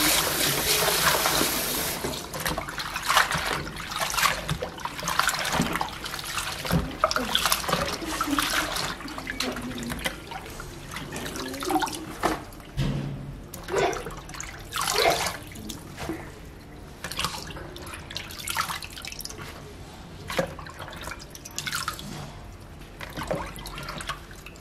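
Tap water pouring into a plastic basin, stopping about two seconds in; then hands swish chopped kale leaves around in the water, giving irregular splashes and drips.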